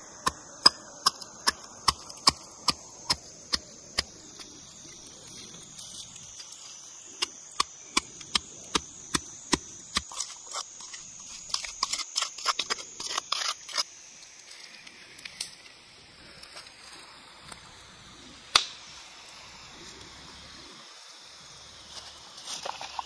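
Knife chopping on a wooden board in steady strokes about two to three a second, in several runs with pauses, the last run quicker, then one lone stroke later on. A steady high insect drone runs underneath.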